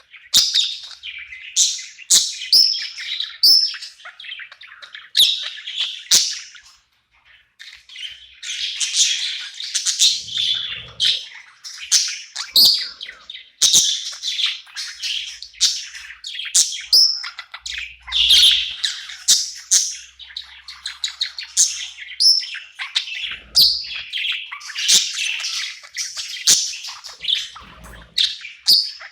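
Budgerigar singing and chirping: a busy, continuous warble of quick high chirps and chattering notes, with a short pause about seven seconds in.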